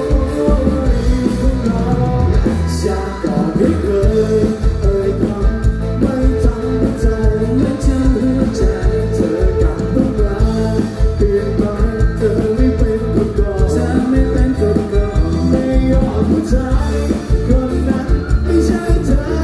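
A man singing a song into a microphone over loud live-amplified music with a steady beat.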